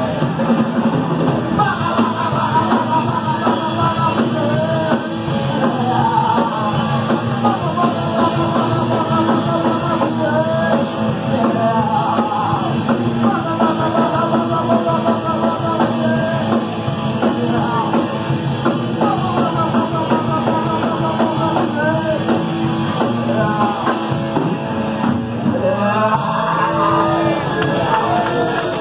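Punk rock band playing live: loud, dense rock music with drums and singing.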